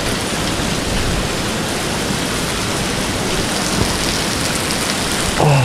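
Heavy typhoon rain falling steadily on a wet street, an even, unbroken rush of noise.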